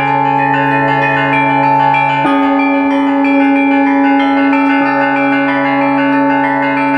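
Russian Orthodox church bells ringing together: a dense peal of many overlapping bell tones, small bells struck rapidly over sustained deeper bells. Heavier strokes of the larger bells come about two and a half seconds apart.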